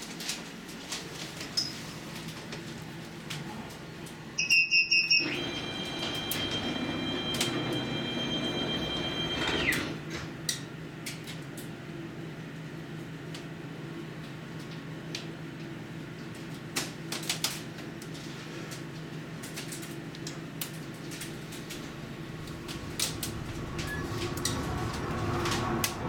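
Funicular car's departure warning: a quick run of high beeps about four seconds in, then a steady high tone for about five seconds. After that the car runs along the track with a steady low rumble and scattered clicks.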